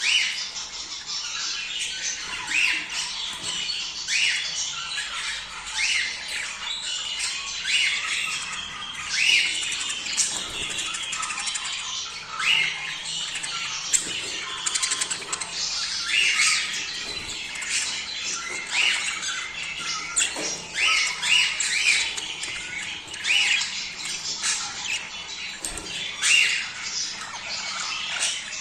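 A flock of budgerigars chattering and squawking together, a dense, unbroken stream of short high chirps and warbles, the kind of chatter kept to encourage budgies to breed.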